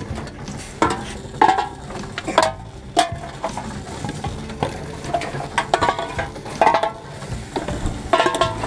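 Empty drink cans and bottles clattering and clinking one after another as they are fed into a container-deposit reverse vending machine, over a steady low machine hum.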